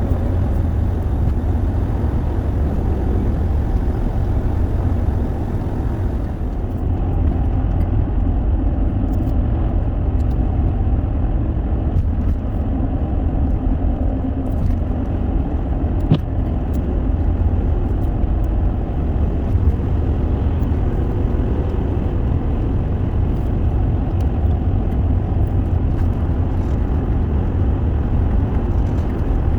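Old Jeep driving at road speed: a steady deep rumble of engine and tyre noise, with one brief tick about halfway through.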